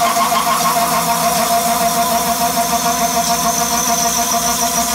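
A 4-inch side milling cutter on a Tormach PCNC 1100 mill slotting a block of aluminium. It makes a steady machining whine with a slight regular pulse as the teeth cut.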